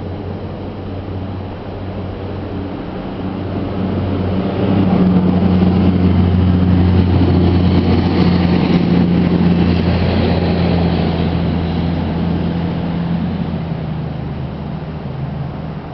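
A vehicle's engine running with a steady low hum, growing louder about four seconds in and easing off toward the end.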